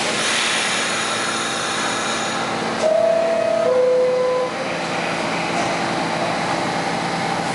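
A Pullman Standard R46 subway train standing at the platform with a steady hum. About three seconds in, the two-note door chime sounds, a higher note then a lower one, signalling that the doors are closing, and the doors shut soon after.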